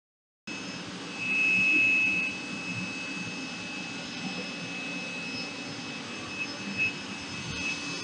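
Bosch GL-30 Pro Energy bagged cylinder vacuum cleaner running: a steady high motor whine over rushing air. It starts abruptly and swells louder for about a second shortly after.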